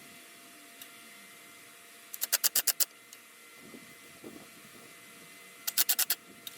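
Two quick runs of sharp, evenly spaced clicks, about ten a second: one a little over two seconds in and a shorter one near the end, with faint handling noise between, from hand work on a rear hatch latch assembly.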